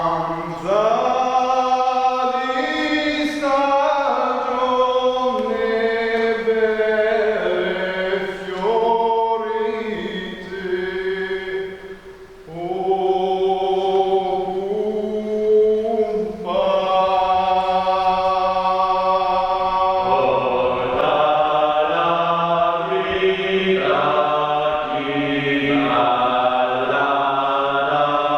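Amateur choir singing in several parts, holding long sustained chords that move from note to note, with a short pause between phrases about twelve seconds in.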